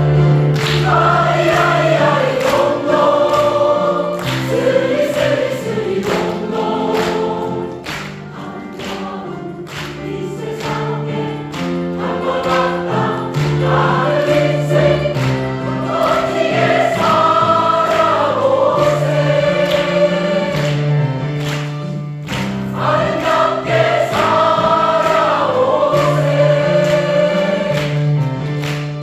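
A mixed choir singing in parts, with held notes and melodic lines moving over a steady low voice part.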